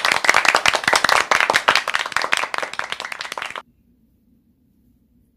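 Applause: many hands clapping in a dense patter that eases off a little, then cuts off abruptly about three and a half seconds in.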